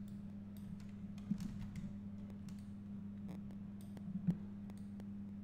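Scattered clicks from a computer mouse and keyboard, a few seconds apart, with the sharpest one near the end, over a steady low hum.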